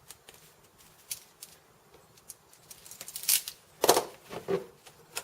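A knife blade scraping and shaving small bits of 3D-printed plastic out of a screw hole, with light ticks and scrapes. Near the end comes a louder scrape and two sharp knocks as the plastic pieces are handled and fitted together.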